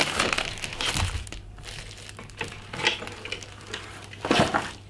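Clear plastic shrink-wrap crinkling and rustling in irregular bursts as it is pulled off a molded wood toilet seat, with the loudest rustle near the end.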